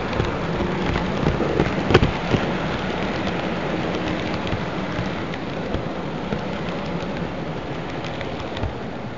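H0 model train rolling over Märklin track: a dense, even rattle of wheels with small clicks, slowly fading. One sharp click stands out about two seconds in.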